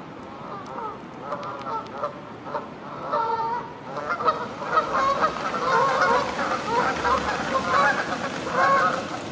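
Several Canada geese honking over one another in a steady stream of calls, growing louder about halfway through.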